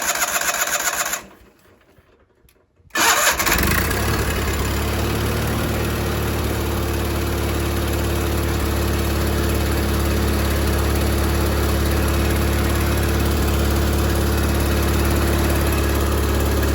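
Onan P218G twin-cylinder engine in a John Deere 318 being cranked, stopping for a moment, then catching about three seconds in and running steadily. This is its first run on new piston rings, burning off assembly lube.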